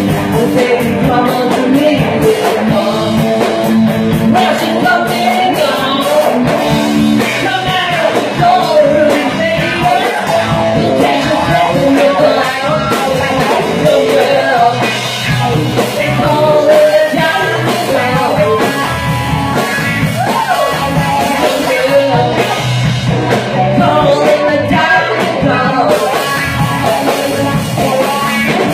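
Live rock band playing: a man singing into a microphone over electric guitars and a drum kit.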